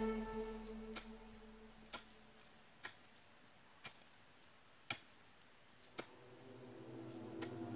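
Faint ticking, one sharp tick about every second, like a clock. Background music fades out at the start and fades back in near the end.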